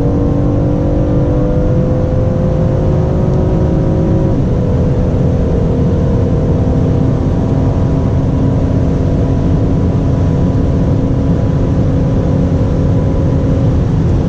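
BMW M760Li's 6.6-litre twin-turbo V12 pulling hard at high speed, heard from inside the car, over heavy road and wind noise. The engine note climbs slowly, drops suddenly at an upshift about four seconds in, then climbs again.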